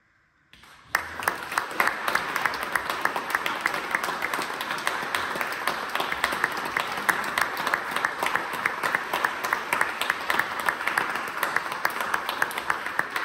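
Audience applauding, a dense, steady clapping that begins about half a second in.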